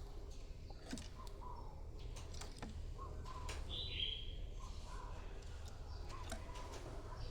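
Spotted dove cooing softly, short coos repeating every second or two: a decoy bird's call used to lure wild doves. A higher, brighter chirp comes about four seconds in, over a steady low hum and scattered faint clicks.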